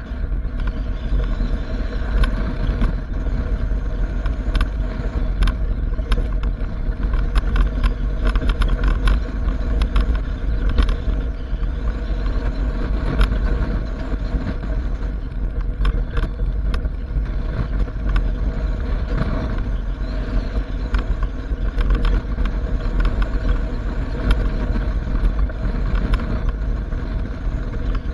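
Pickup truck towing a trailer at road speed: steady road and engine noise with heavy low wind rumble on the outside microphone and frequent short rattles from the trailer.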